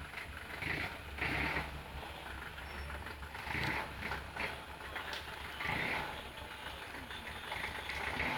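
Off-road jeep engine running with a steady low rumble, with several short louder surges.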